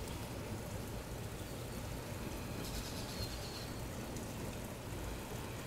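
Steady, quiet outdoor background noise, with a faint high bird call about three seconds in.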